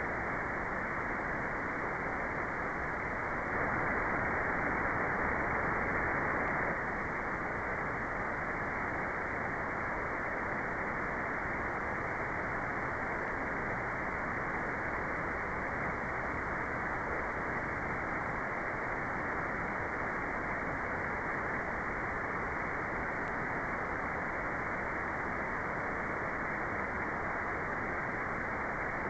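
Steady white noise: an even, muffled hiss with no treble. It swells a little louder for a few seconds near the start.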